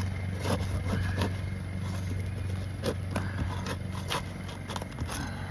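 A sealed granule-surfaced roofing shingle being pried up with a roof snake shingle tool: a handful of sharp scrapes and cracks as the stuck shingle tears. The roof-snake scraping is heard over a steady low hum.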